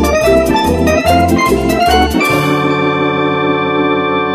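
Background music played on an organ-like keyboard: a tune over a pulsing bass, which gives way about halfway through to one long held chord.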